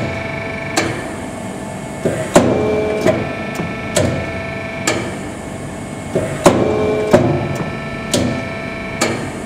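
Amada CB-83 compact press brake cycling on a test run: sharp metallic clacks as the ram strokes, with a steady machine tone for a second or two in each stroke. The cycle repeats about every four seconds.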